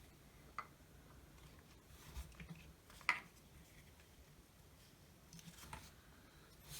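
A few faint, separate clicks and taps of small drill parts and tools being handled during disassembly, the sharpest about three seconds in.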